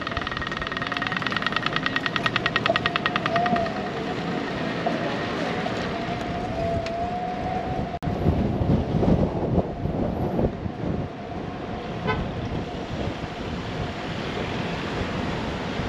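A bell rings in a fast trill of rapid strikes over street noise for the first few seconds, with a steady high squeal running on behind it. After a short break about halfway, wind buffets the microphone.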